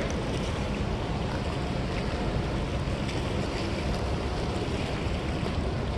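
Steady rushing of the fast, swollen river flowing out below a dam that is releasing water, mixed with wind noise on the microphone.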